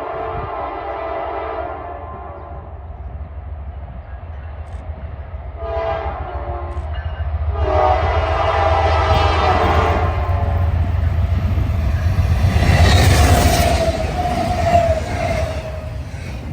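Locomotive air horn sounding a long blast that ends about a second and a half in, then a short blast and a second long blast: the pattern of a grade-crossing signal. The train's rumble builds as it passes, loudest near the end, with a faint falling tone.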